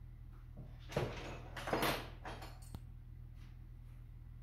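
Clatter and scraping of tools and parts being handled on a shop workbench: two loud bursts, about a second in and just under two seconds in, then a sharp click, over a steady low hum.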